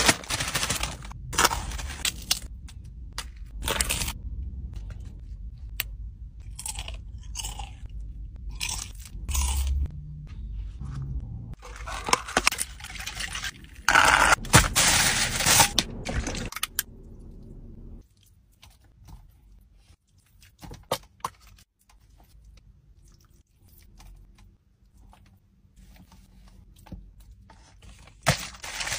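Close-up eating sounds: a Doritos crisp bag crinkling as it is torn open, then bursts of crunchy chewing and rustling. The last third is much quieter, with only scattered small clicks.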